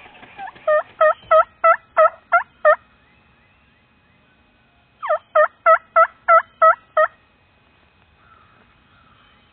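Turkey yelping: two loud runs of about seven evenly spaced yelps, roughly three a second, the second run starting a couple of seconds after the first ends.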